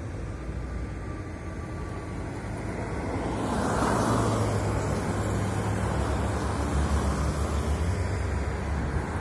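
Road traffic at a city intersection: a car swishes past close by about four seconds in, over a steady low rumble.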